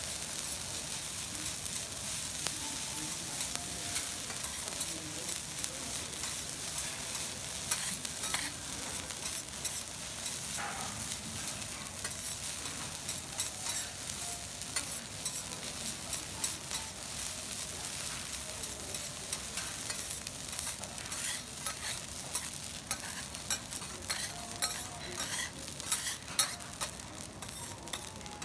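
Egg garlic rice sizzling on a teppanyaki steel griddle while two steel spatulas stir, chop and scrape it across the hot plate. Frequent sharp clicks and taps of metal on the griddle come thicker in the last several seconds as the rice is pushed into a mound.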